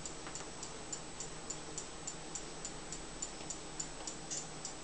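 Steady light ticking, about four even ticks a second, over a faint low hum.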